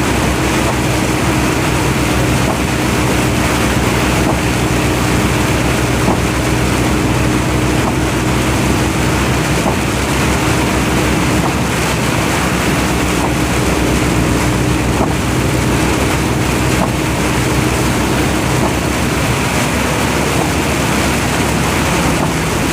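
Vehicle engine running steadily with a constant rush of road and wind noise while driving at a steady speed.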